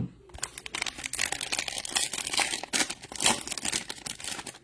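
Trading-card pack wrappers crinkling and tearing as they are ripped open and crumpled by hand, in a dense run of crackles after a thump at the start.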